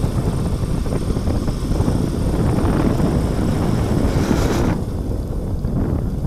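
Motorcycle engine running with wind buffeting the microphone as the bike rides along a dirt lane; the sound eases a little about three-quarters of the way through.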